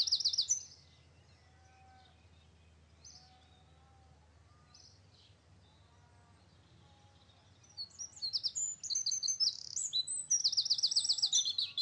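Birds singing: rapid, high-pitched trills of quickly repeated notes. The trilling stops about half a second in, leaving faint whistled calls, and starts up loud again from about eight seconds in.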